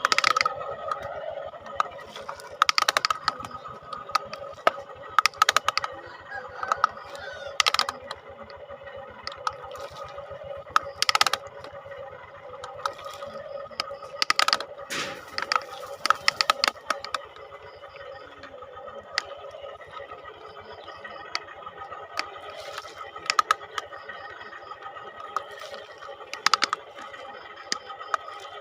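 Small electric motors of radio-controlled toy construction vehicles running with a steady whine, with frequent sharp clacks and knocks throughout.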